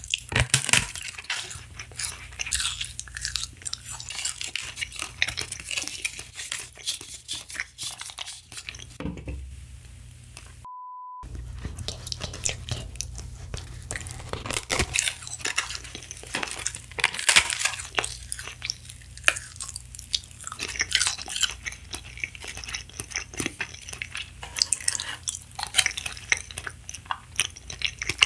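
Close-miked biting and chewing of a thin, crisp edible pink sheet: dense, crackly crunching with irregular bites.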